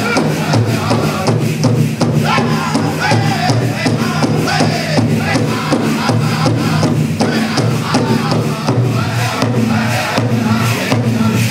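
Powwow drum group singing a jingle dress song: several voices singing together, their pitch sliding up and down, over a steady, evenly spaced beat on a large shared drum.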